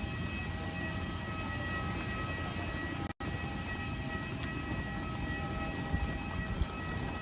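Airbus A320 running on the ground after landing: a steady low rumble under a whine of several high tones, cutting out for an instant about three seconds in.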